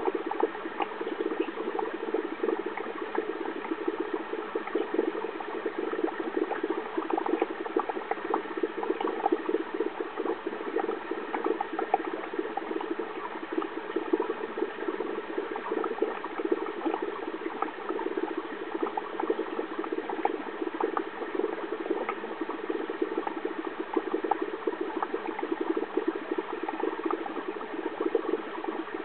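Aquarium water bubbling steadily: a dense crackle of small pops over a constant hum.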